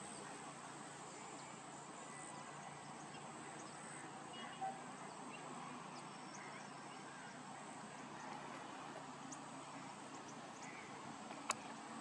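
Faint, steady outdoor background ambience with a thin high steady tone. There is one short brief sound about four and a half seconds in and a sharp click near the end.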